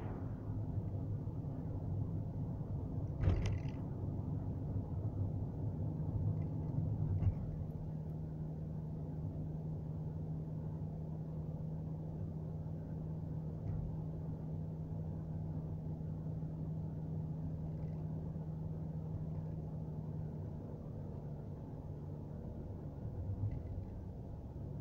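Steady engine and road noise inside a moving car's cabin, settling into an even low drone from about five seconds in. A single sharp thump comes about three seconds in.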